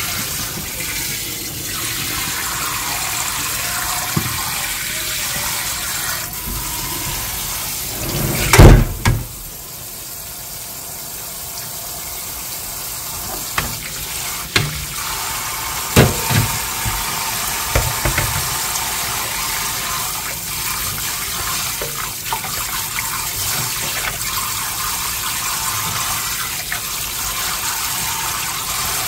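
Kitchen tap running steadily into a stainless steel sink while cooked noodles are rinsed and drained through a mesh strainer, with water splashing in the pan. A few sharp clanks of cookware against the sink, the loudest just before nine seconds in, then several more near the middle.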